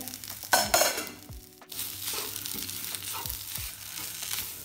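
Wooden spatula stirring and scraping a dry mix of minced beef and mashed potato around a nonstick frying pan over heat, with a steady sizzle. A loud spell of scraping comes about half a second in, the sound drops out briefly, then the sizzling and stirring strokes go on evenly.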